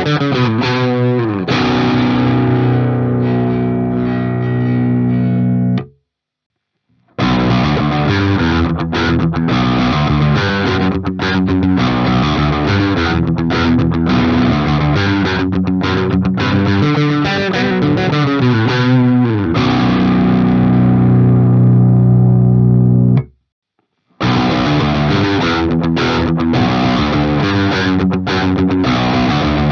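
Distorted seven-string electric guitar (Ibanez Axion Label RGD71ALMS, Fluence Modern ceramic pickups) through an amp simulator, playing a fast riff with held chords that ring out. The sound is cut dead twice, about six seconds in and again near twenty-three seconds, each time for about a second of silence.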